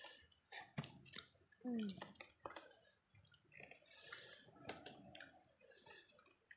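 Faint, wet, sticky sounds of fingers picking and tearing flesh from charred grilled fish, with scattered small clicks.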